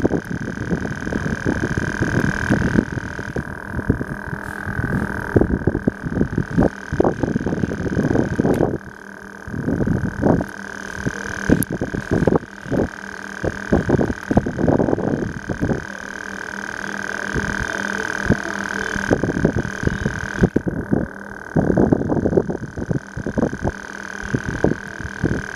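Handling noise on a compact camera's built-in microphone: irregular low rumbling and thumping, over a steady high hum.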